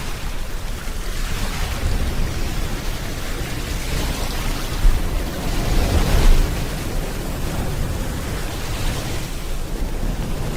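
Steady rain mixed with ocean waves washing onto a shore; a wave swells up and breaks about six seconds in, with a smaller one near the end.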